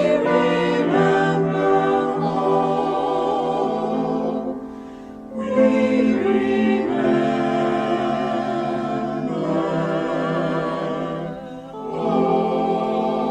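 Choir singing in long held chords, with a short pause between phrases about five seconds in and another near the end.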